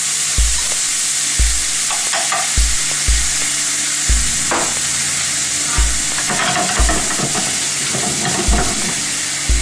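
Demi-glace sauce with sliced mushrooms sizzling steadily in a frying pan over a gas flame, with a dull low thump about once a second.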